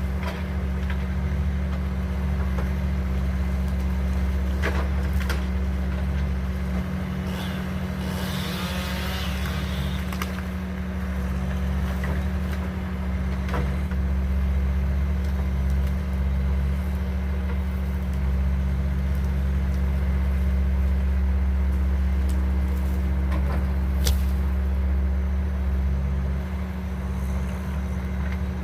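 Diesel engine of heavy land-clearing equipment running steadily at work, with a brief burst of crackling about eight seconds in and a few sharp clicks.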